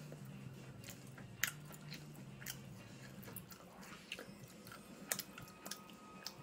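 A person chewing a mouthful of kimchi fried rice, with small wet mouth noises and a few sharp clicks. A low hum underneath fades out about halfway through.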